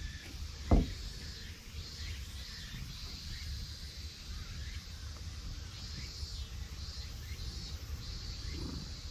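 Outdoor background with a faint, pulsing high buzz and a low rumble on the microphone, and one short, dull thump just under a second in.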